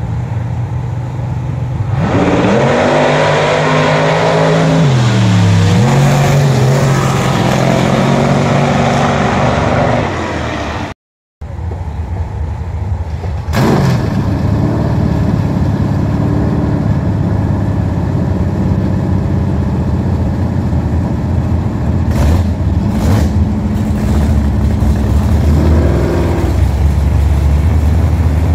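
Drag-racing car engines at full throttle, launching and pulling away down the strip, with the engine note climbing and then falling. After a short break in the sound, engines run again at a steadier, lower pitch.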